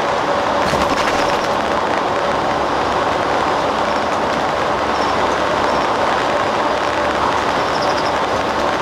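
Interior of an airport limousine coach on the move: steady engine and road noise with a faint steady whine, and a few light clicks about a second in.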